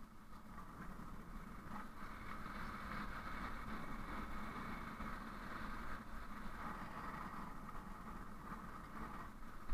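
Steady ride noise of a vehicle running down a dirt forest track: a continuous whir and rumble, with one sharp knock at the very end.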